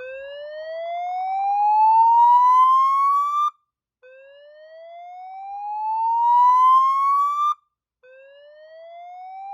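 Fire alarm speaker/strobe sounding the slow whoop evacuation tone: a loud pitch sweep rising for about three and a half seconds, cutting off, and starting again after a short break, three times over. It is the fire evacuation signal that precedes the recorded voice message.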